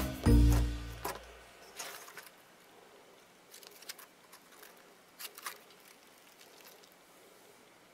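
Background music that stops about a second in, then faint sticky clicks and crackles as hands squeeze and stretch soft black glitter slime.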